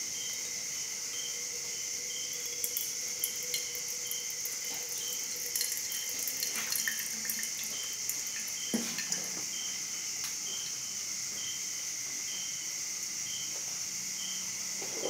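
Thin stream of water poured from a gooseneck kettle into a paper-lined V60 coffee dripper, with small ticks and drips and a light knock near the middle. Crickets chirp steadily behind it, pulsing about twice a second.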